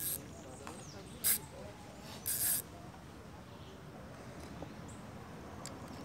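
Spinning reel's drag giving line in a few short buzzes over the first three seconds, as a hooked fish pulls against a bent ultralight rod.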